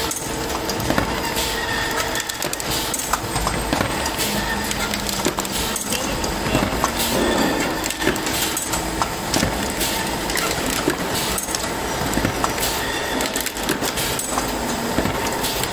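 Semi-automatic crash-lock-bottom folder-gluer running: a steady machine hum under a continuous clatter of clicks and knocks.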